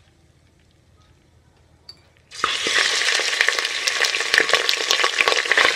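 Raw mutton pieces drop into hot mustard oil in a pressure cooker about two seconds in, and the oil starts sizzling loudly with dense crackling that keeps going.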